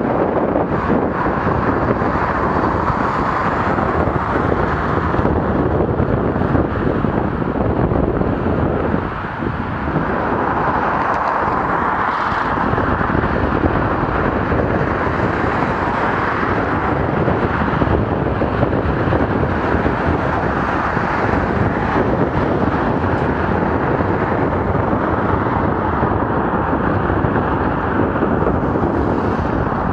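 Steady, loud wind rush on the microphone of a camera riding on a bicycle, with a brief lull about nine seconds in.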